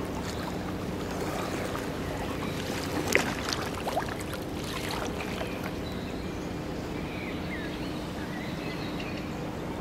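Pontoon boat moving across floodwater: a steady wash of noise with a low, even hum underneath, and a sharp knock about three seconds in.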